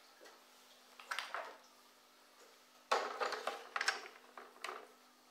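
Hard plastic filter baskets being set into the plastic canister of a Tetra EX 800 Plus external aquarium filter, clattering and knocking in short bursts: once about a second in, then several in quick succession from about three to five seconds in.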